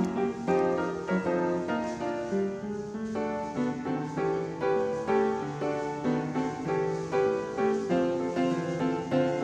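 Background piano music, with notes struck at a steady, even pace.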